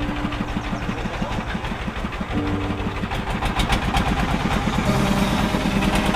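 A small engine running steadily with a rapid even pulsing. Its pitch shifts up about two and a half seconds in and again about five seconds in.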